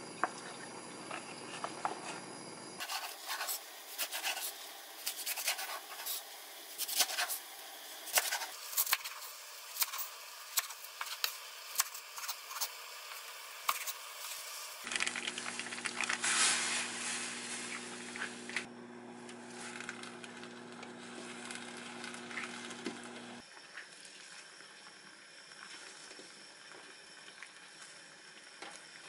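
A kitchen knife chopping green onions and perilla leaves on a wooden cutting board: a long run of sharp, uneven knocks. At the start, broth pours briefly from a carton into a clay pot.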